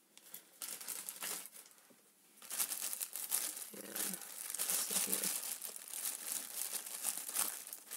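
A bag crinkling and rustling as small toy horses are taken out of it and handled, in a short burst and then a longer run after a brief pause about two seconds in.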